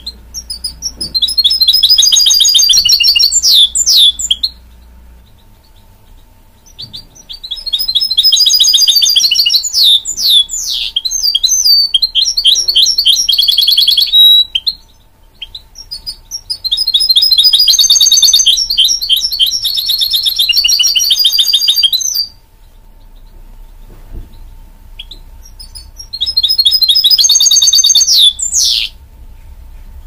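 Goldfinch mule (goldfinch × canary hybrid) singing in four long phrases of rapid trills and twittering notes, each lasting several seconds, with short pauses between them.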